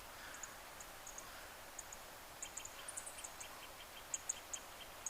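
Faint forest ambience: small birds chirping in short, high notes over a soft hiss, with the chirps coming more often from about halfway through.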